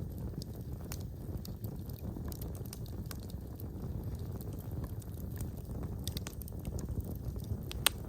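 Wood fire burning in a fireplace: a steady low rumble of flames with scattered crackles and pops, one sharper pop near the end.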